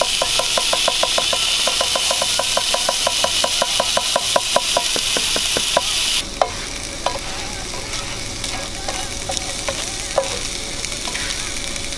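Blackened chicken sizzling on an electric skillet while rice is tipped in and stirred and scraped with a spatula. A fast, regular ticking runs through the first six seconds, then the sizzle quietens, with scattered clicks and scrapes.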